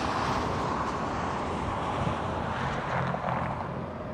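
Steady rushing outdoor noise of road traffic and wind on the microphone, with no distinct single event; the far-off freight train itself is too distant to stand out.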